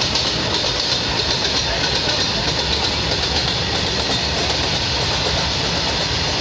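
Goods train rolling on the rails, a steady noise of wheels on track with some clickety-clack.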